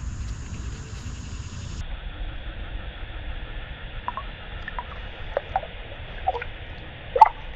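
Small water splashes and drips as a red-breasted sunfish is lowered into the river by hand and released, over a steady background hiss. A handful of short splashes come from about four seconds in, the sharpest near the end.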